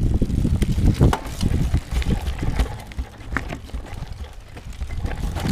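Mountain bike being ridden over a rough trail: a low wind rumble on the microphone with irregular knocks and rattles from the bike.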